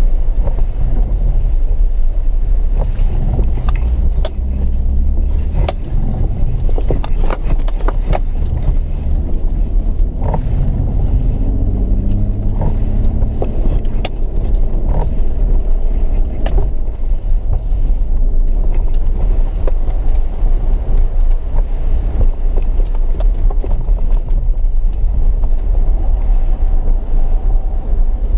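Off-road vehicle driving over rough sand and dirt track: a steady low rumble of engine and tyres, with scattered rattles and knocks from the bouncing vehicle.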